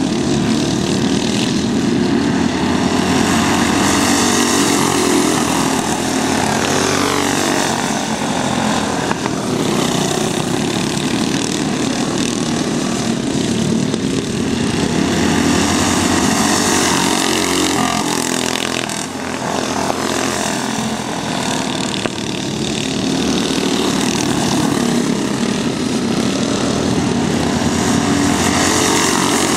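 Several racing go-kart engines buzzing as the karts lap the track, their pitch sliding up and down as they accelerate out of corners and pass by.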